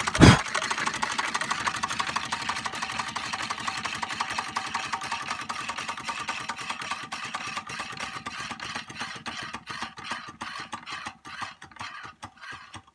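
Märklin 4176/2 hot-air Stirling engine and the belt-driven tin reaper toy running with a fast mechanical clatter that gradually slows and fades, the ticks spreading further apart until they stop near the end: the engine winding down once its spirit burner is put out. A single sharp clack just after the start.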